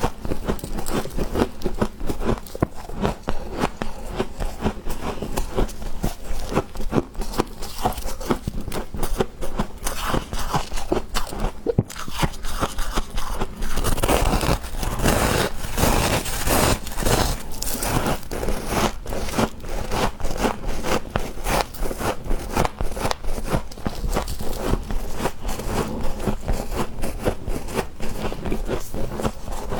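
Freezer frost crunched between the teeth: a continuous run of rapid, crackly crunching, a little louder about halfway through.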